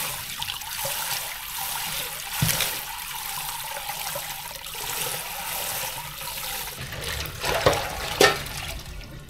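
Tap water running steadily into a sink while surf clams are rinsed of sand, with a few sharp knocks, the loudest near the end.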